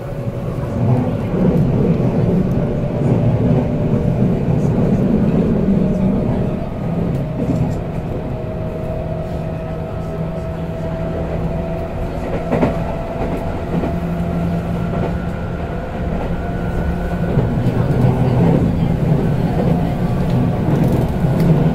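Running sound of a JR West 221 series electric train heard from inside the car: a steady rumble of the wheels with rail clatter. A thin motor and gear whine rises slowly in pitch through the middle, and there is a single sharp click about halfway through.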